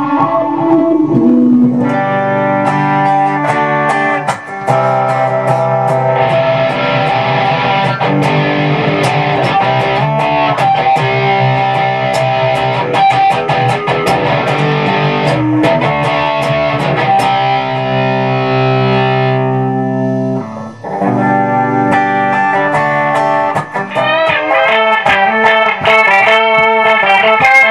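Ibanez RG1527 seven-string electric guitar played through a Korg AX3000G multi-effects processor and a Peavey ValveKing tube amp, with distorted picked notes and phrases. The tone shifts as the effect parameters change, and near the end the notes take on a fast wobble.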